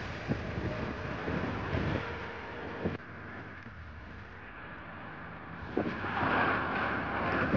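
Wind rumble and knocks on the microphone with distant airport noise, then, after a cut about three seconds in, the jet engines of a Boeing 737-700 on final approach, growing louder from about six seconds in.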